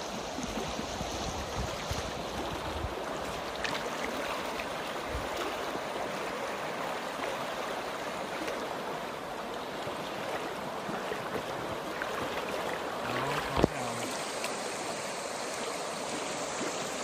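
River water flowing: a steady, even rush of stream noise. There is one sharp knock about three-quarters of the way through.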